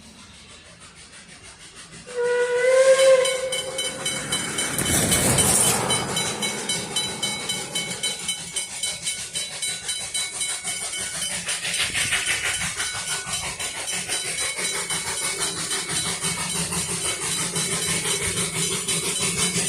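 Puffing Billy steam locomotive sounding one whistle of about two seconds, about two seconds in, with a slight bend in pitch. A burst of steam hiss follows, then the steady pulsing chuff of the locomotive working past with its train.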